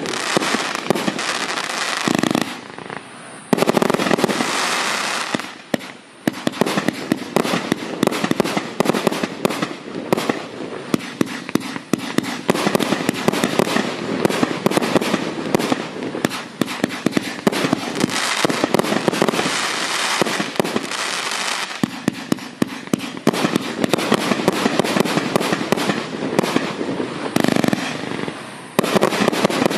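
A 120-shot, 30 mm Furor 'Extra Warm' FC30120-2 fireworks cake firing in rapid succession: a dense, continuous volley of launch bangs and aerial bursts, with a short lull about three seconds in.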